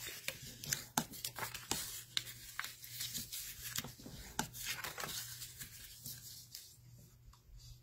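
Bone folder scraped and rubbed firmly along the scored folds of a square of patterned paper, burnishing the creases. It makes a quick run of short scraping strokes with sharp clicks, which thin out near the end.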